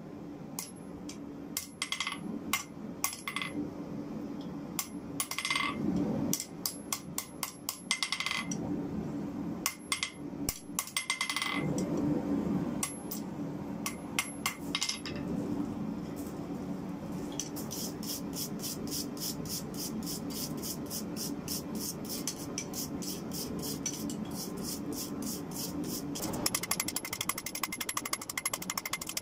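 Hand hammer striking red-hot car-spring steel on an anvil while the crowbar's bent end is forged. The blows come unevenly and ring sharply, over a steady hum. From about halfway on, a fast, even ticking takes over.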